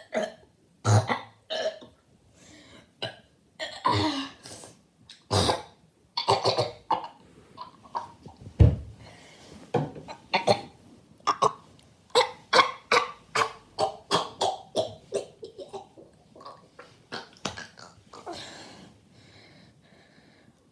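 A person burping over and over: a string of short burps, with one loud, deep burp about halfway through and a quick run of short ones after it.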